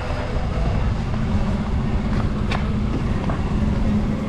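A vehicle driving along a road: a steady low rumble of motor and road noise with a faint constant hum, and a single short click about two and a half seconds in.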